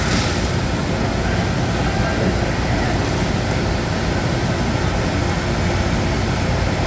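Steady low rumble of an indoor roller hockey arena during play, with a single sharp clack right at the start and faint distant voices.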